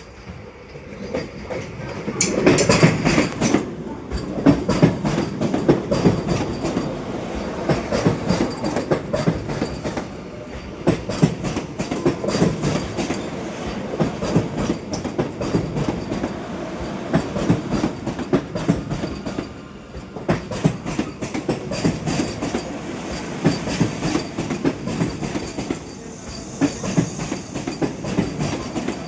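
Vande Bharat Express electric trainset running over the track, its wheels clattering rapidly over rail joints. The clatter grows louder about two seconds in, then carries on in pulsing groups as the coaches pass.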